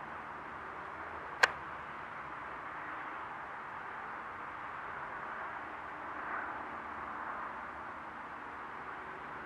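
Distant hovering police helicopter: a faint, steady drone of rotor and engine noise with no clear beat. A single sharp click about a second and a half in is the loudest moment.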